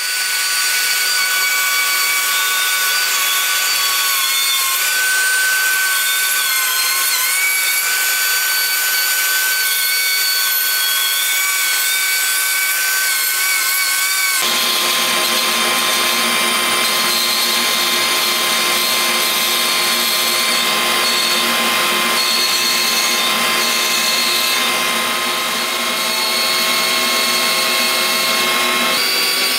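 Compact trim router running steadily as it cuts a circular groove into a live-edge ash slab. About halfway through the sound changes abruptly to a different steady power-tool drone with more low hum.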